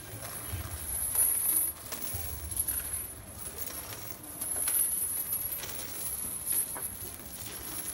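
Footsteps and shuffling of a procession of penitents carrying wooden crosses, with scattered light clicks and knocks and a few dull low thuds.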